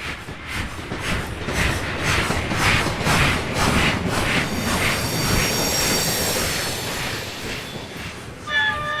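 Steam locomotive approaching, its exhaust chuffing in an even beat of about two to three chuffs a second and growing louder. Near the end its steam whistle starts, a steady chord of several tones.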